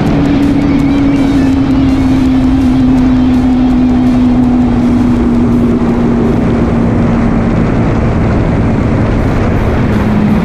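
KTM Duke 200's single-cylinder engine and muffler running at high revs, a loud, steady exhaust note that eases slowly down in pitch.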